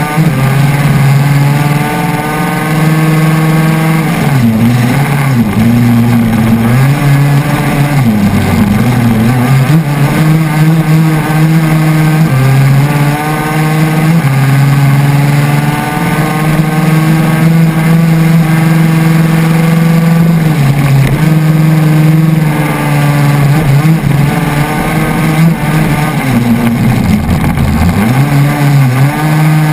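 A KTM 250 SX two-stroke single-cylinder engine in a crosskart, heard onboard at racing revs. The engine pitch drops sharply several times, about five, and climbs back up each time.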